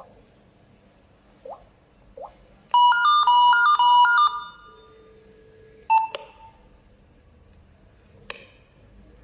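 Video intercom indoor monitor playing a short melodic electronic ringtone of quick alternating notes for about a second and a half, the ring of an intercom call between indoor monitors. A single short beep follows a couple of seconds later, and a click near the end as the call is hung up.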